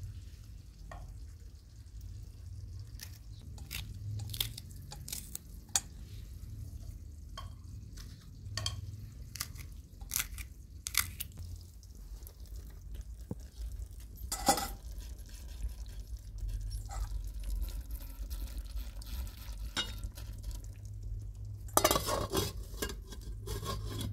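A knife cutting green peppers over a metal bowl, with scattered sharp clicks as the slices drop in. In the second half the pan of stew cooks, and near the end a metal lid clatters onto the pan.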